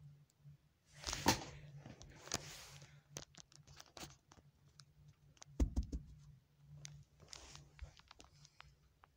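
Rustling and scraping with scattered light clicks and a heavier thump about midway, over a faint steady low hum.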